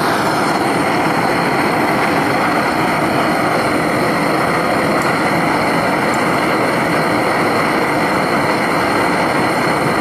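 Bernz-O-Matic JT539T swirl-flame propane torch burning at full heat into a small furnace: a loud, steady rushing of the flame that does not change.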